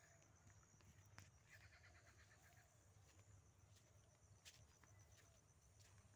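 Near silence, with faint steady insect trilling and one short burst of rapid chirping partway through; a few faint clicks.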